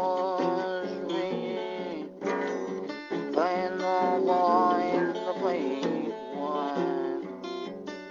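Music led by a strummed acoustic guitar.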